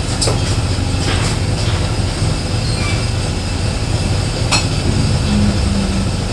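Steady low rumble of a gas stove burner running under a large pot of simmering soup, with a few faint clicks.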